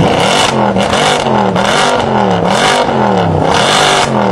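Mercedes-AMG car's exhaust as the engine is revved over and over in quick blips, the pitch rising and falling a little more than once a second.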